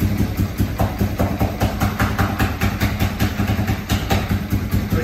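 1989 Yamaha TW200's air-cooled single-cylinder four-stroke engine idling on full choke while warming up from a cold start, with a steady, even exhaust beat.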